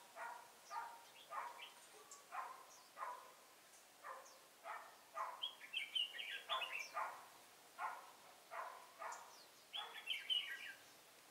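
Red-whiskered bulbuls calling: a short call repeated about every two-thirds of a second, with a higher, warbled song phrase breaking in about halfway through and again near the end.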